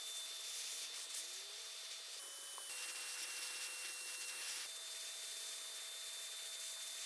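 Electric paint spray gun running, a steady motor whine over the hiss of paint being sprayed. The whine drops a little in pitch for about two seconds in the middle, then returns.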